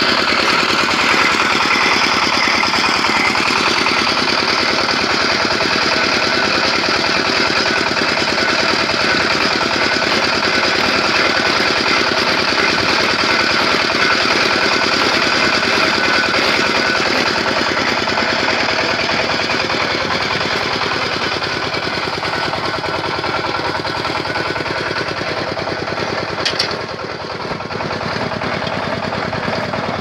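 Clay brick extruder machine running steadily, with a continuous, fast-pulsing mechanical drone as it pushes out a column of clay. A brief click comes near the end.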